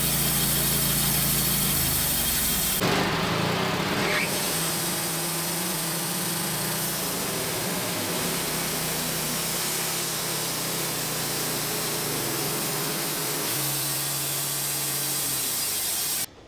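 Engine of a WoodMizer LT15 portable band sawmill running steadily under a sawing cut, cutting off suddenly near the end.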